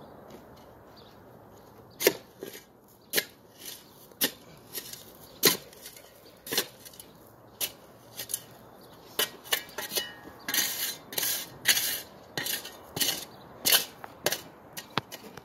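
Steel spade digging into gravelly soil: irregular sharp clinks and scrapes of the blade striking stones, roughly one or two strokes a second, starting about two seconds in. A denser run of scraping strokes comes about ten seconds in.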